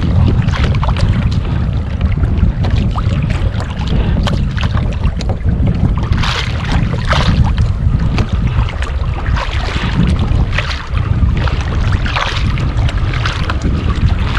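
Wind buffeting the microphone in a steady low rumble, with irregular slaps and knocks of small waves against a fishing kayak's hull.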